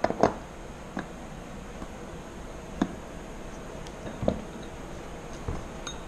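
Scattered light clicks and knocks as the metal hub and bolts of a MATCO HME51Z aircraft wheel are handled and fitted into the wheel half. The sounds are about half a dozen separate taps over a steady low hiss.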